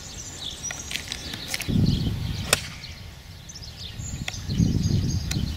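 A golf ball struck once with a 9-iron, a single sharp crack about two and a half seconds in. Wind rumbles on the microphone in two gusts, and birds chirp faintly.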